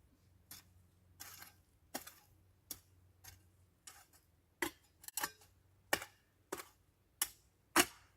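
A hand garden tool striking and scraping into soil in short, sharp chops, about one or two a second, to dig out weeds.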